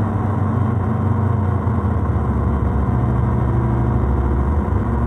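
A steady, loud electronic drone from a noise pedal, running through a Chase Bliss Audio Habit delay and played over a speaker. It is a low buzzing hum made of several held tones that runs on without a break.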